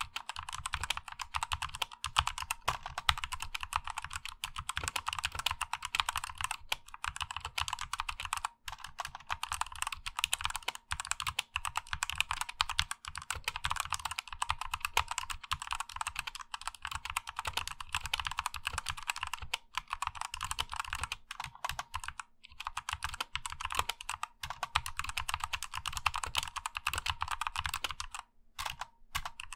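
Continuous fast typing on a stock 60% hot-swap mechanical keyboard with Outemu Black linear switches. The keystrokes come in a steady quick stream, broken by a few short pauses.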